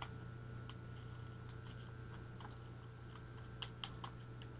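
Faint scattered clicks and taps of hands handling a motor mount and tape on a foam RC flying wing, with a few sharper clicks near the end, over a steady low hum.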